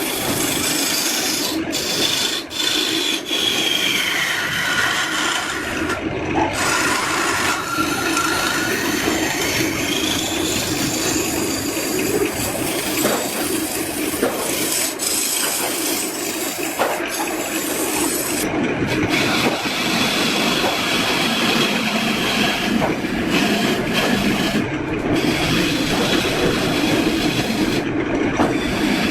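Hand tool working wood with continuous rubbing and scraping, broken by a few brief pauses.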